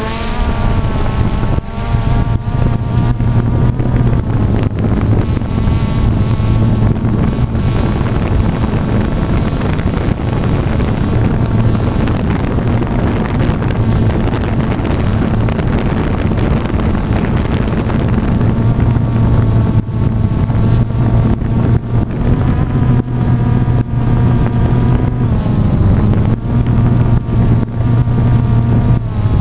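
FPV drone's electric motors and propellers running, heard from the onboard camera. A steady low hum lies under a whine whose pitch drifts up and down with throttle, and wind buffets the microphone throughout.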